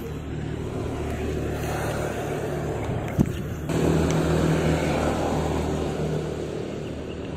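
An engine running nearby, growing louder a little past the middle and then easing off, like a vehicle passing. There is a sharp click about three seconds in.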